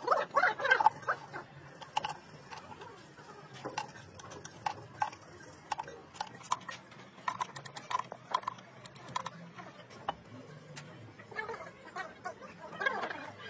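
Irregular sharp metal clicks and clinks of a T-handle socket wrench working the bolts on the steel planet carrier of a large planetary reduction gear. Voices are heard briefly in the first second and again near the end.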